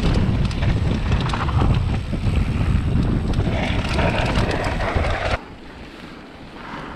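Wind buffeting the camera of a mountain bike ridden fast down a gravel trail, with the tyres crunching and rattling over loose gravel. About five seconds in the noise drops abruptly, where the trail meets a paved road.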